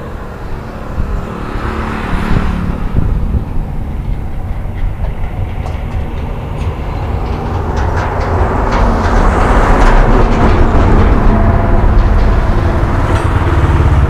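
Hero Honda Splendor Plus's single-cylinder four-stroke engine running, freshly rebuilt with new piston rings and a repaired crank. It runs evenly and gets louder as it is revved from about eight seconds in, easing off near the end. The mechanic judges its sound completely OK after the rebuild.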